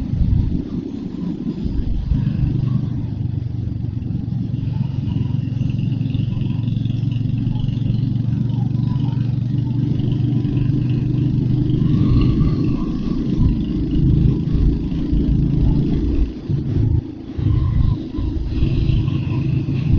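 Royal Enfield Hunter 350's single-cylinder engine running steadily while riding, a low pitched engine note; the note drops out briefly twice about three-quarters of the way through.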